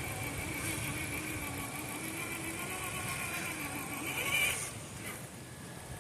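Traxxas TRX4 RC crawler's electric motor and geared drivetrain whining steadily under throttle as it drives into mud. The pitch rises slightly, then cuts off about four and a half seconds in.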